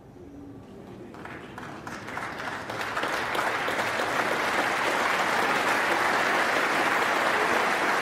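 Snooker audience applauding a shot. The clapping swells over the first three seconds and then holds steady and loud.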